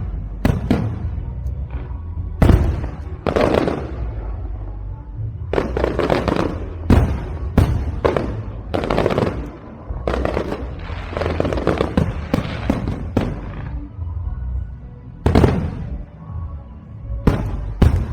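Aerial fireworks shells bursting one after another, a dozen or so sharp bangs, most trailed by about a second of crackling hiss.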